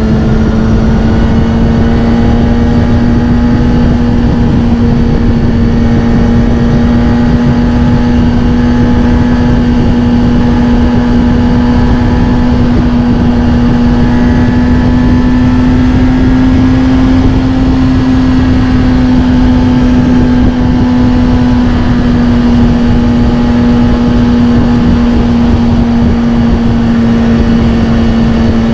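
Kawasaki Ninja ZX-6R inline-four running through a Scorpion titanium exhaust at a steady cruise, its note climbing slightly about halfway through and then easing back, over a steady rush of wind noise.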